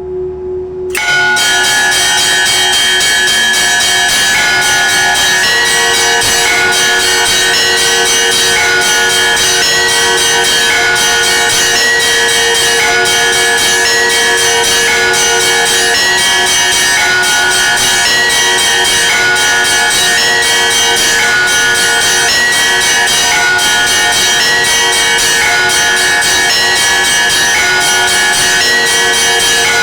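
Church bells ringing in a full, continuous peal: many bells of different pitches, the higher ones struck in quick repeated strokes over steadier lower tones. The peal cuts in abruptly about a second in, over a single sustained ringing tone.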